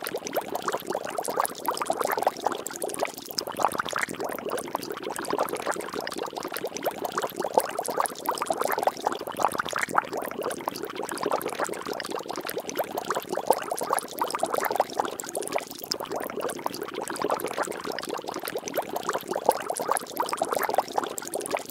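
Water bubbling and splashing, a steady dense stream of small drops and plops.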